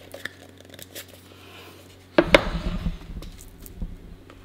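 Thin clear plastic lid on a tray of raw honeycomb being pressed shut, clicking and crackling. A cluster of sharp snaps a little past two seconds in is the loudest part, with small taps and rubs around it.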